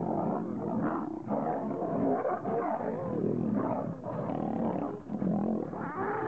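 Male lions growling and snarling as they fight, overlapping rough calls one after another without a break.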